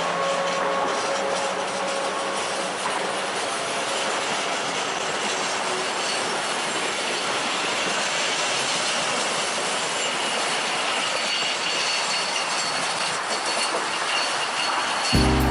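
A train of the Bière–Apples–Morges railway running along the track: a steady noisy rumble of wheels on rail, with faint high squealing tones in the second half.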